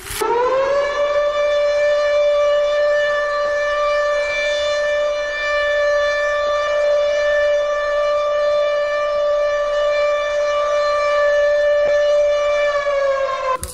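A siren sounding one long steady tone. It rises quickly to pitch at the start, holds, and begins to wind down just before it cuts off.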